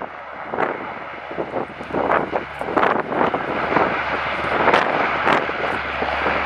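Antonov An-12's four Ivchenko AI-20 turboprop engines running at takeoff power as the freighter rolls down the runway, heard through heavy, gusty wind buffeting on the microphone.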